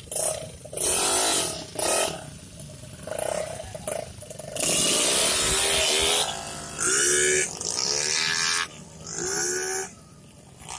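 Racing scooter engine revved hard in a string of short blips and one longer rev of about a second and a half near the middle, the pitch climbing and dropping with each burst.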